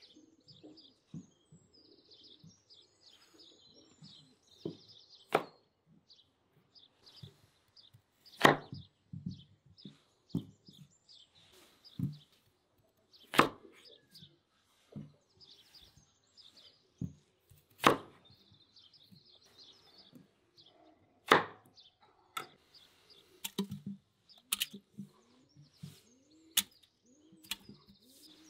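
Knife chopping peeled potatoes on a wooden cutting board, single sharp chops a few seconds apart, with birds chirping in the background. Near the end come quicker, lighter knocks as the potato chunks go into the metal cauldron.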